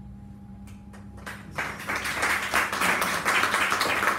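Audience clapping, starting about a second in and quickly growing into dense applause at the end of a poem reading.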